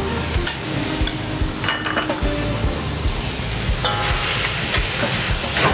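Sliced rice cakes, pickled mustard greens and shredded pork sizzling in a hot wok while a metal ladle stirs them, with a few sharp clinks of the ladle against the wok.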